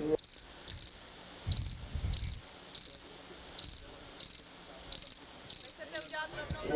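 A cricket chirping steadily: short high chirps of a few quick pulses each, about two a second. A low rumble comes in briefly about a second and a half in.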